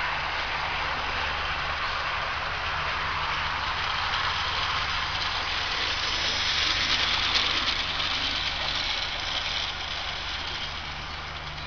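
00 gauge model diesel locomotives with DCC sound decoders: a steady recorded diesel engine hum from their small speakers, with the rush of model wheels on the track. It grows louder about six seconds in as the model Class 08 shunter passes close, then fades near the end.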